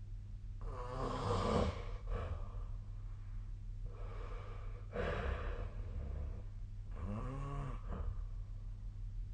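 A sleeping person snoring: three snoring breaths, roughly three seconds apart, each lasting about a second or more.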